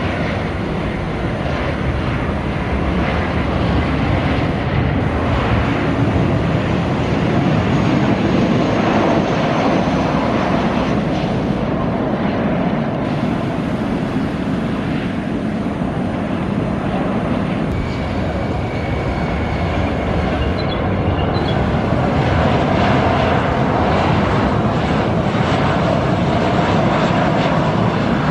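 Boeing 737 airliner's twin jet engines during a landing, a steady rushing engine noise that swells a little twice as the jet comes in and rolls down the runway.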